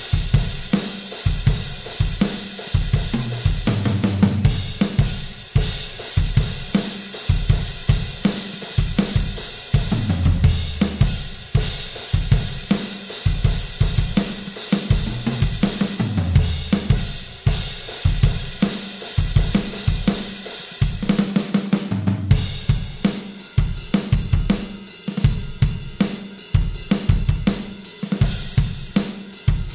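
Electronic drum kit playing a rock groove of kick, snare and hi-hat with cymbal crashes. Short fills come every several seconds, and the beat changes to a new pattern about three-quarters of the way through.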